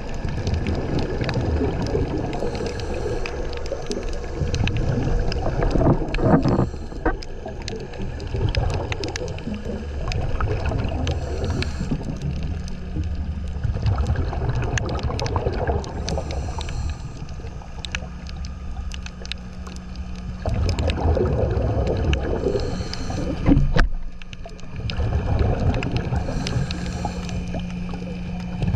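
Underwater sound of scuba diving: a regulator's breathing and bursts of exhaled bubbles rumbling every few seconds, over a steady low hum.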